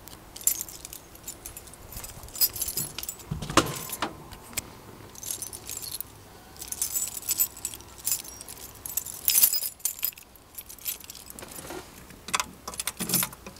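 Irregular metallic jingling and clinking, like a bunch of keys being handled, with a few knocks, the loudest about three and a half seconds in.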